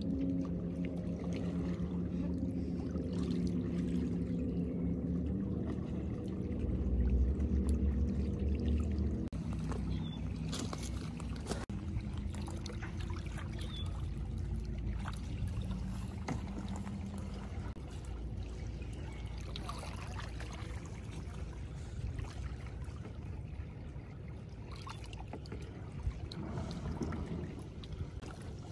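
A boat engine's steady low hum, louder briefly around seven to nine seconds in and then fading away, over small waves lapping and splashing at the shore.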